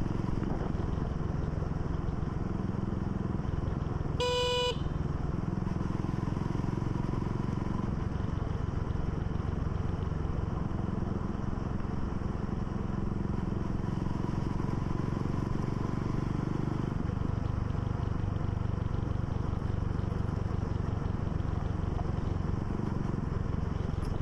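Motorcycle engine running steadily under way, its note dropping lower about two-thirds of the way through. A short horn beep sounds about four seconds in.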